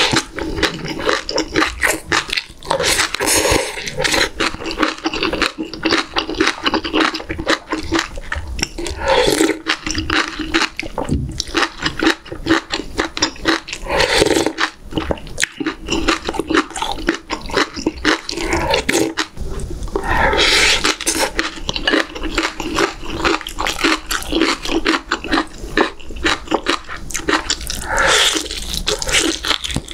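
Close-miked eating: wet chewing and slurping of spoonfuls of doenjang stew broth with rice, with a few louder slurps. Near the end, biting and gnawing meat off a beef short-rib bone.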